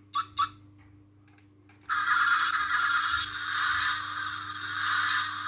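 Toy model motorcycle's battery-powered engine sound effect: a few light clicks as the sprung rear wheel is pressed down, then about two seconds in a loud, thin electronic engine noise starts from its small speaker and keeps going.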